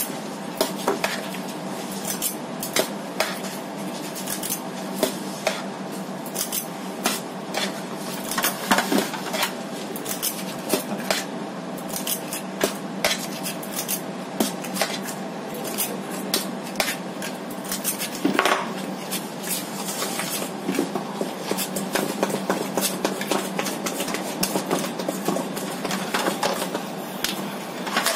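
A metal squeeze-handle disher scraping and clinking against a stainless-steel mixing bowl as cupcake batter is scooped out, giving irregular clicks and knocks. A steady low hum runs underneath.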